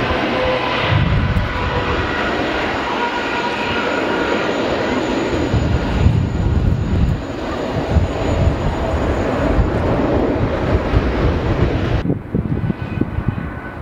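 Airbus A380's four jet engines running as the airliner rolls along the runway: a loud, steady rush of jet noise with uneven low rumbles. About twelve seconds in it cuts off abruptly to a quieter, duller jet engine sound.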